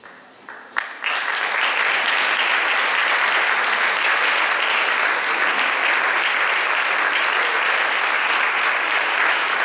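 Audience applauding: a few single claps, then full, steady applause from about a second in.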